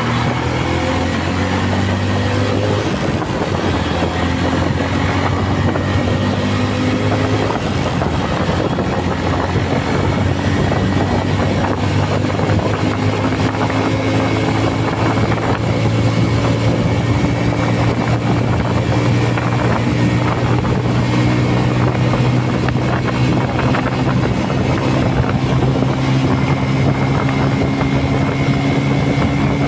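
Bajaj Pulsar LS135's single-cylinder four-stroke engine pulling hard under acceleration, its note changing pitch in steps through the gear changes, with wind rushing over the handlebar-mounted microphone.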